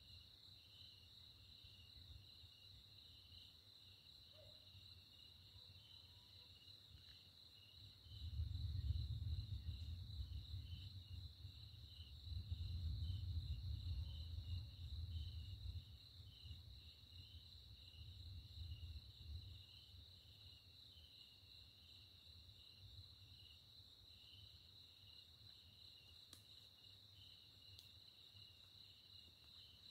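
Distant thunder rumbling low, swelling about eight seconds in and rolling on for several seconds before fading, with a weaker roll a little later. Under it, a steady high chirring of night insects such as crickets.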